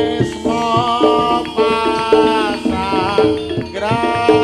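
Javanese jaranan music playing: a singer holds a long, wavering melody over regular drum beats and struck metal keyed gamelan instruments.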